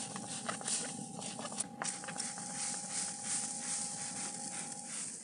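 Hand trigger spray bottle spritzing a vinegar-and-water mix onto pork ribs, a quick run of short hissing sprays about two to three a second.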